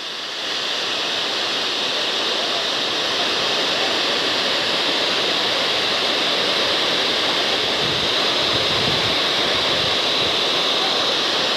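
Flash-flood torrent rushing and pouring down a slope like a waterfall: a steady, loud rush of water.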